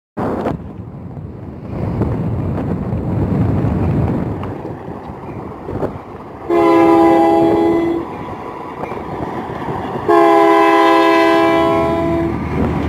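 Diesel locomotive air horn sounding two long blasts, the second a little longer, over the steady low rumble of the locomotives' diesel engines.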